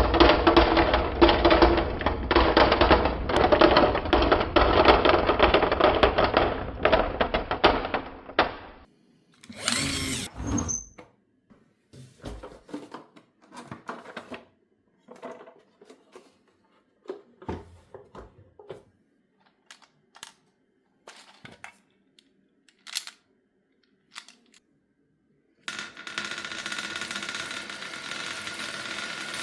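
Marbles clattering down a wooden marble run: a dense, continuous rattle for about the first eight seconds, then single marbles clicking and knocking with gaps between. A steady whirring starts near the end.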